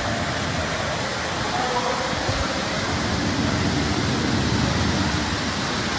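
Steady rush of water on a water-park lazy river.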